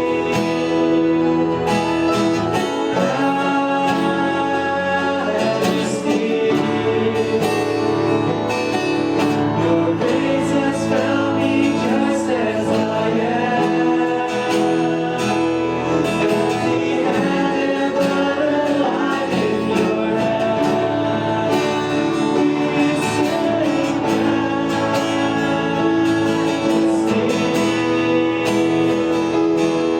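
A worship song: singing accompanied by acoustic guitar, playing continuously at a steady level.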